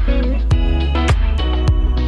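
Background music: guitar-led track with a steady beat, about two strokes a second.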